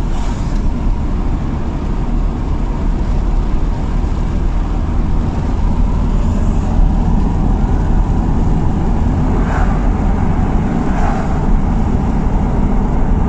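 Road and wind noise inside the cab of a Mercedes Sprinter van driving on a wet road in the rain: a steady low rumble. This is the cab noise with no wind deflectors fitted yet.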